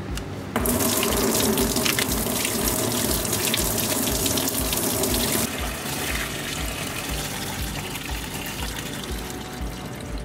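Engine coolant gushing out of a Renault Duster's cooling system through the disconnected lower coolant hose. The flow starts suddenly about half a second in, runs strongly for about five seconds, then settles to a weaker steady flow.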